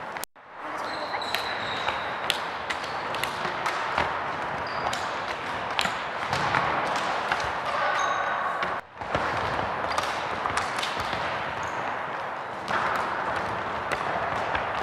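Sports-hall din of children exercising: a constant murmur of voices with many sharp knocks and thuds of feet and balls on the wooden floor, and a few short squeaks. It breaks off for a moment near the start and again about halfway through.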